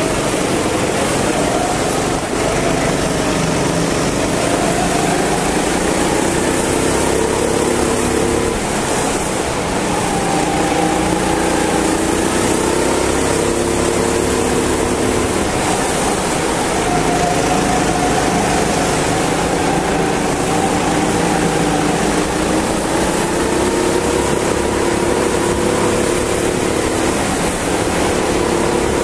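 Go-kart engine heard onboard at racing speed, its pitch rising and falling again and again as the throttle opens and closes through the corners, over a steady hiss of wind and road noise.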